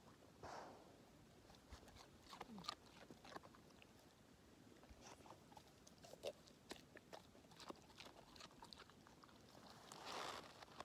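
English setter chewing and crunching raw carrot pieces: faint, irregular crunches and clicks.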